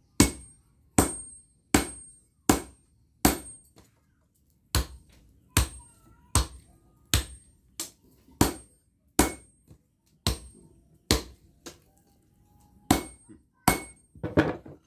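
Hammer blows forging a red-hot bar of bearing steel into a knife blade on a small steel anvil: sharp metallic strikes about every three-quarters of a second, each with a brief high ring. The strikes pause briefly about four seconds in, with a few lighter taps between the heavy blows.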